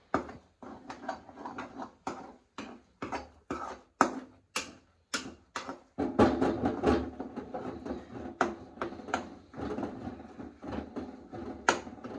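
A spatula knocking and scraping against a pan while eggs are scrambled and left to firm up. The sharp knocks come irregularly, a few a second, and turn busier with more continuous scraping about halfway through.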